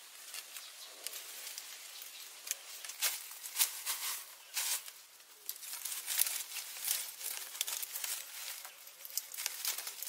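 Irregular rustling and crackling of leaves and sticks being handled, a run of sharp dry crackles with no steady rhythm.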